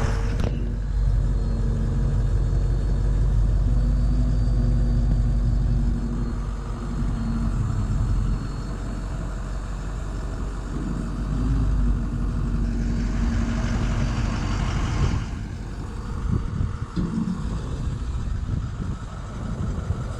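A motor vehicle's engine running close by, a steady low rumble that is loudest in the first six seconds and eases off after, with a brief rush of noise a little past the middle.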